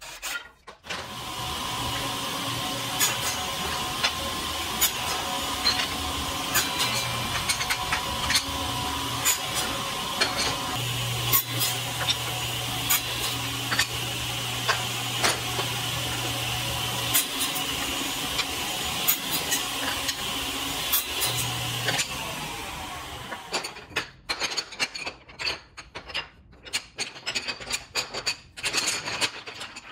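Table saw running steadily while round wooden dowels are crosscut into short lengths on a crosscut sled, each cut a brief sharp burst over the motor's hum. The saw winds down about 23 seconds in, leaving scattered clacks of the cut wooden dowel pieces being handled on the saw table.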